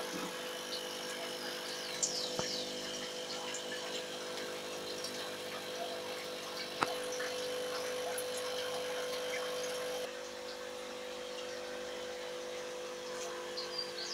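Aquarium air pumps and filters humming steadily, with bubbling water.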